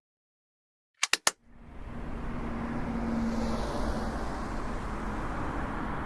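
Three quick clicks, then steady road-vehicle noise fades in and holds, with a faint hum for a couple of seconds as it starts.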